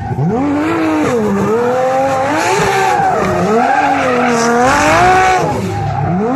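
BMW E30 drift car's engine revving hard while drifting, its pitch climbing and falling about three times, with the tyres squealing as it slides.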